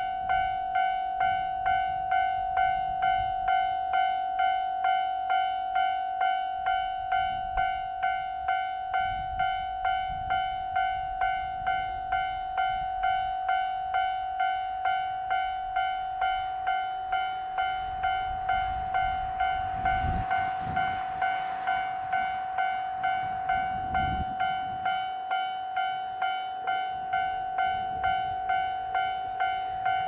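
Japanese railway level-crossing warning bell ringing in steady, even strokes, about two a second, signalling that the gates are down for an approaching train. A low rumble swells and fades about two-thirds of the way through.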